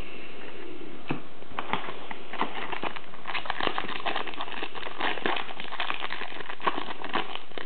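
Foil trading-card pack wrapper crinkling and crackling as it is handled and torn open close to the microphone: a dense run of small crackles and clicks.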